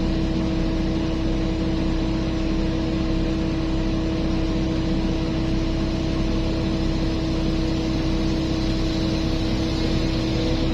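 Heavy mining machinery's diesel engine running steadily, a constant drone with a strong held tone and no change in load.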